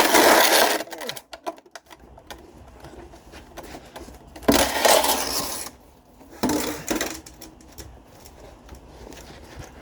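Metal dragging and clattering as tools and the removed exhaust back box are hauled out from under the car: three loud scraping bursts, one at the start, one around four and a half seconds in and a shorter one near seven seconds, with lighter clanks between.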